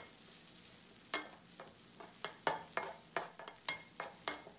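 A metal spatula scrapes and knocks against a wok in short, irregular strokes, about three a second from a second in. Underneath is the faint sizzle of pounded chilies and garlic frying in hot oil.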